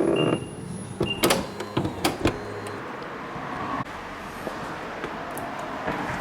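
Nissan Serena's power sliding door finishing its travel: its warning beep sounds once more, then a few sharp clicks and knocks as it latches, followed by a low steady hum.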